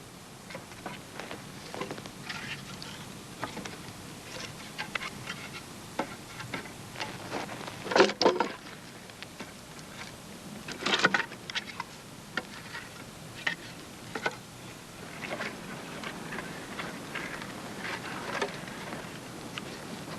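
Split wood pieces knocking and clattering against each other as they are laid and stacked by hand, in irregular clunks and clicks. Two louder bursts of clatter come about eight and eleven seconds in.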